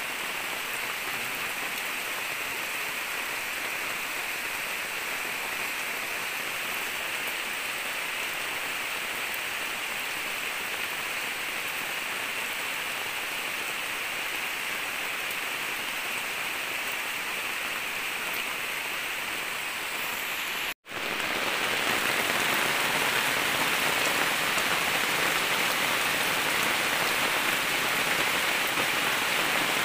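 Steady rain falling on rainforest foliage, a drizzle of big drops. About two-thirds of the way through the sound cuts out for an instant and comes back louder.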